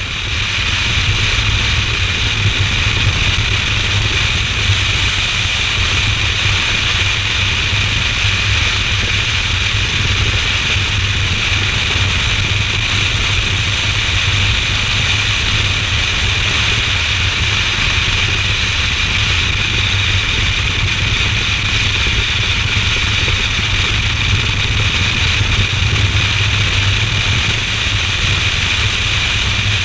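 Motorcycle cruising at steady road speed: a constant rush of wind noise with low engine and road rumble underneath, unchanging throughout.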